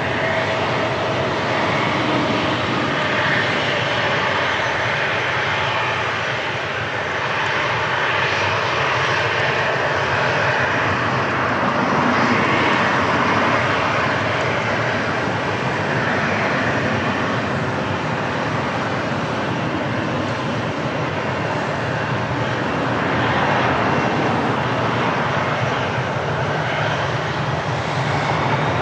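Passenger airliner's engines running: a steady, loud wash of engine noise that swells and eases slowly.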